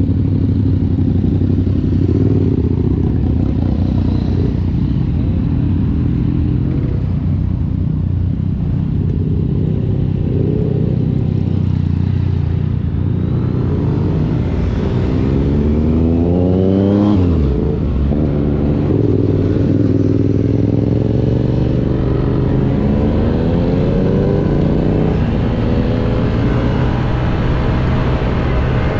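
Motor scooter and motorcycles riding at speed: a steady engine drone with wind rush. From about halfway, an engine revs up in rising sweeps. The first climbs for a few seconds and then drops sharply, and two more climbs follow.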